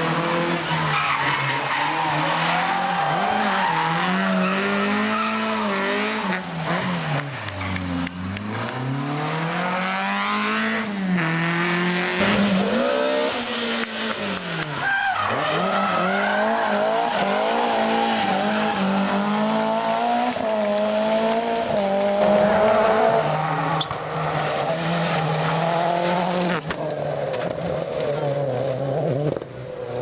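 Rally car engines revving hard through several passes, the pitch climbing through the gears and dropping sharply on lifts and downshifts, with tyres squealing through corners.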